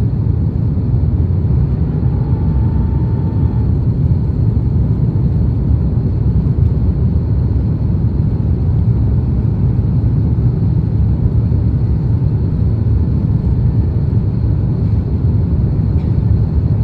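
Steady low rumble of an Airbus A330 in flight as heard inside the cabin: engine and airflow noise. A faint short whine comes in about two seconds in.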